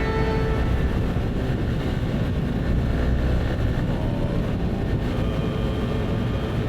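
Yamaha NMAX 125 scooter riding at speed, a steady low rumble of its small single-cylinder engine mixed with wind rushing over the microphone.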